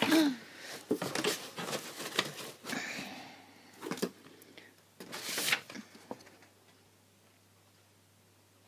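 Paper and card rustling and rubbing as printed sheets are handled, in several bursts with small clicks, stopping about six seconds in.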